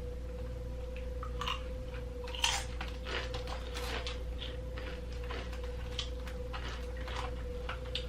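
Snacks being chewed and crunched close to the microphone, with scattered short clicks and crackles, the loudest about two and a half seconds in, over a steady low hum.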